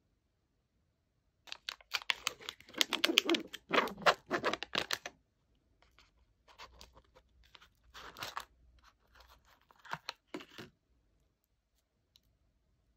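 Snack packaging being torn open and crinkled. A dense run of tearing and crackling lasts about three and a half seconds, followed by three shorter crinkles.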